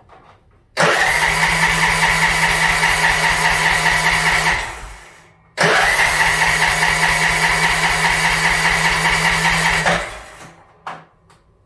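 Riding mower's new electric starter cranking the engine on choke in two attempts of about four seconds each, a steady whirring turnover with a high whine, each cut off abruptly. The engine does not fire up.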